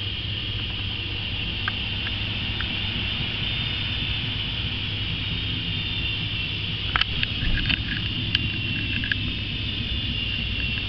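Front-loading washing machine drum spinning a load of wet clothes, the motor giving a steady high whine over a low hum. A short run of clicks and rattles comes about seven seconds in.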